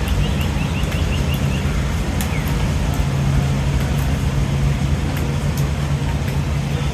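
A quick run of about eight short, high bird chirps in the first second and a half, and a single falling chirp a little later, over a steady, louder low hum and rumble like road traffic.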